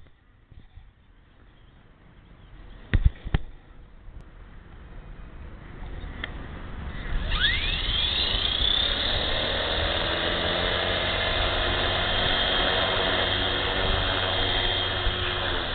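Tarot 450 DFC electric RC helicopter's brushless motor and rotor spooling up about halfway through: a whine that rises steeply in pitch, then holds a steady high tone. A couple of sharp clicks come about three seconds in, before the spool-up.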